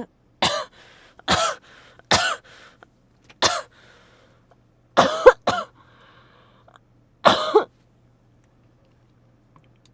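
A woman with a cold coughing repeatedly: about eight short coughs, with three in quick succession about five seconds in and a last one near the eight-second mark.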